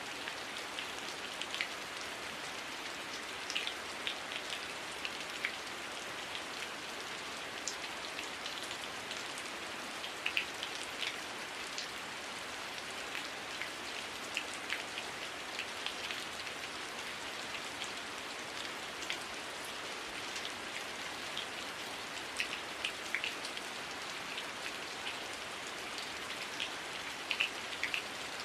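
Heavy rain falling steadily, a constant hiss with many separate drops ticking and pattering on leaves and surfaces throughout.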